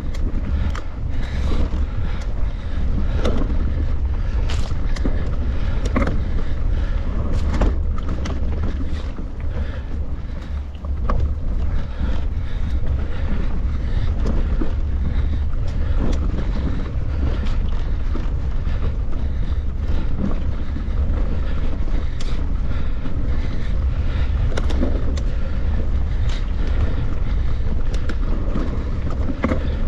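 Mountain bike ridden along a trail: wind buffets the microphone in a steady low rumble, with frequent sharp knocks and rattles scattered through it.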